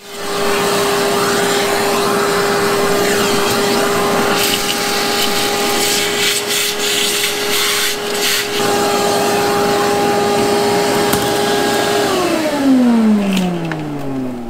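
Vacuum cleaner running with a steady hum, sucking broken window glass out of a car door, with crackles now and then; about 12 seconds in it is switched off and the motor winds down, its pitch falling.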